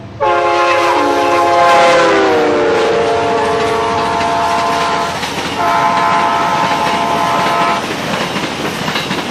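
GE Genesis passenger locomotive's multi-note air horn blowing a long blast that drops in pitch as the train rushes past, then a second shorter blast a few seconds later. Under it the passing passenger cars rumble and clatter on the rails.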